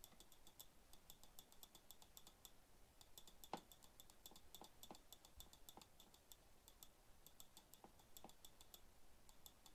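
Near silence with faint computer clicking: quick mouse and keyboard clicks, several a second, with a few slightly louder taps, the clearest about three and a half seconds in.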